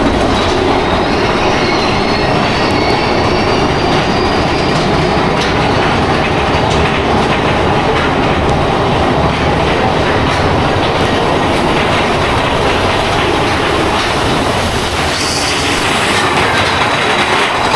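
Big Thunder Mountain Railroad's mine-train roller coaster running on its steel track, heard from the last car: a steady rumble and clatter of the wheels. There is a faint high wheel squeal in the first few seconds.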